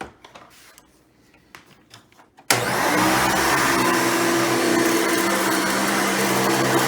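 A few faint clicks of handling, then about two and a half seconds in a Hoover Runabout vacuum cleaner switches on suddenly and runs with a loud, steady motor whine.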